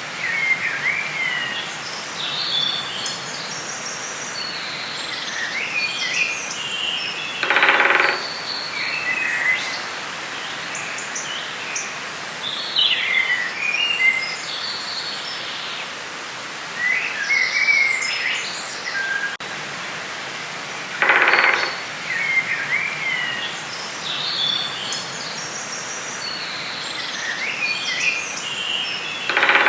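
Forest ambience: songbirds chirping and warbling over a steady background hiss. A louder, lower burst of sound, under a second long, breaks in twice.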